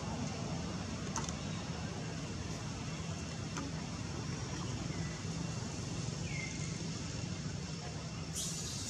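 Steady low rumble like a motor running, with a few faint short high calls falling in pitch about five and six seconds in.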